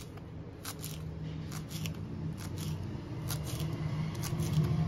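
Kitchen knife chopping fresh coriander leaves on a bamboo cutting board: quick, irregular crisp strokes, about two to three a second. A low steady hum runs underneath and grows louder near the end.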